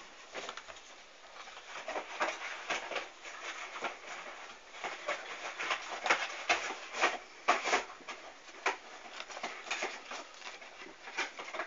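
Paper rustling and crinkling in irregular short strokes as an envelope is opened and folded sheets are pulled out and unfolded by hand.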